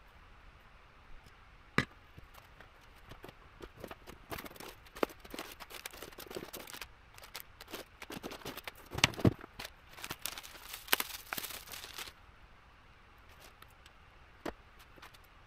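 Hands working at an electronics bench: a sharp click, then several seconds of crinkling plastic component bags and small clicks as parts are handled. One more click comes near the end.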